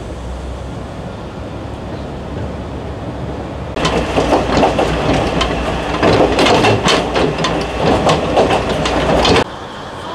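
Kominato Railway KiHa 200 diesel railcar on the move: a steady low engine rumble, then from about four seconds in a much louder rattling clatter of wheels on rail and the car's body, heard near the door step. It cuts off abruptly near the end.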